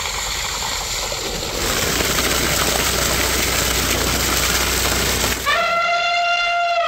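Chicken thokku gravy boiling hard in a large pot, a steady hiss and bubbling that gets louder about a second and a half in. Near the end a trumpet-like held note comes in and then slides down in pitch.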